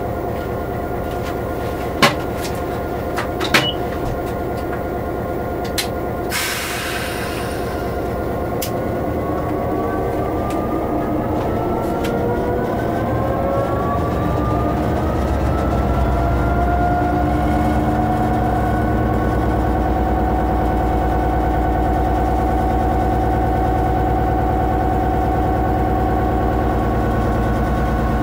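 Class 66 diesel locomotive's two-stroke V12 engine running, heard from inside the cab. There are two sharp clicks in the first few seconds and a short hiss about six seconds in. Then the engine note rises over several seconds and settles into a louder, steady run.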